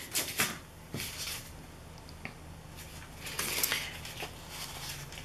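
Soft rustling and light taps of a white cardstock template being picked up and slid over a thin paper napkin on a tabletop, in a few short spells about half a second, one second and three and a half seconds in.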